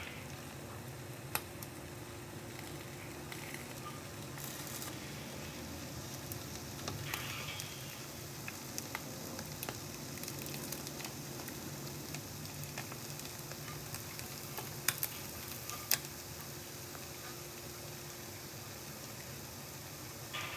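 Egg frying in a closed electric waffle maker: a steady sizzle with scattered sharp pops, the loudest two near the end.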